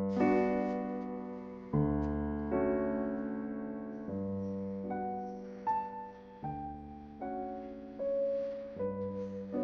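Background piano music: a slow piece of chords and single melody notes, each struck and left to ring and fade.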